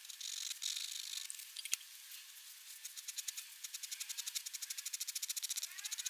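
Fine-tipped pigment pen scratching on paper, with a fast, even run of short strokes in the second half and one sharp tick a little before the middle.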